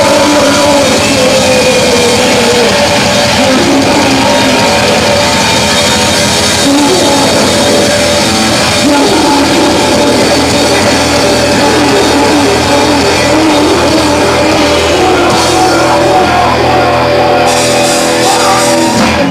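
Heavy metal band playing live and loud, with drum kit and instruments driving steadily.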